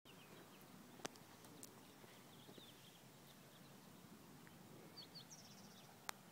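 Near silence with faint, scattered bird chirps and two sharp clicks, one about a second in and one near the end.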